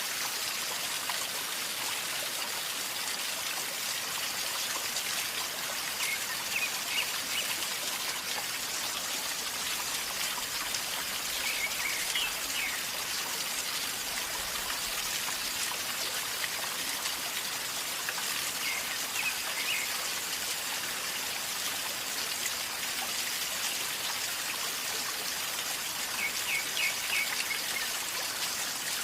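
River water flowing and gurgling steadily. A bird gives short runs of high chirps four times.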